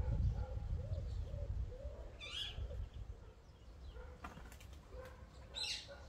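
Garden birdsong: two bright, quick bird calls, about two seconds in and again near the end, over a run of soft, low cooing from a dove. A low rumble sits underneath, heaviest in the first half.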